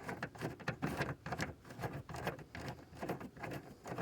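A nut being unscrewed off a long threaded stud that holds a car's taillight assembly: a run of rapid, irregular small clicks and light scrapes.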